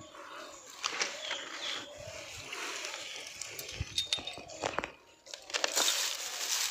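Dry paddy straw rustling and crackling as a hand pushes into a straw stack, louder from about five and a half seconds in; before that, soft handling rustles and a few light clicks.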